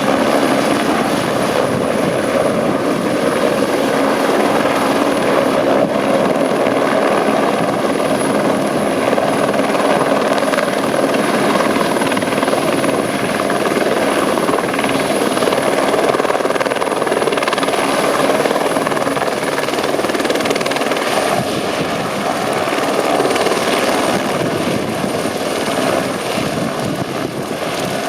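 Eurocopter AS350 Écureuil helicopter running loud and steady, its turbine giving a high whine that drops slightly in pitch about twenty seconds in.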